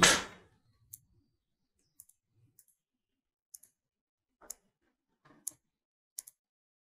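Computer mouse clicking: about eight short, separate clicks at uneven intervals as text is selected and set to bold.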